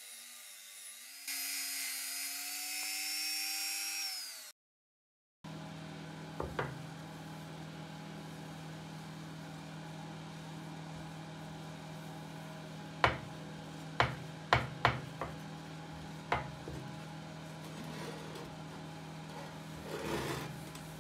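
Rotary tool spinning a pink abrasive mounted stone against a small steel part, a steady whine that gets louder and a little higher in pitch about a second in, then stops. After a short silence, a steady low hum runs under a handful of sharp metallic clicks and knocks as the steel hacksaw frame is handled on the wooden bench, with a brief rub near the end.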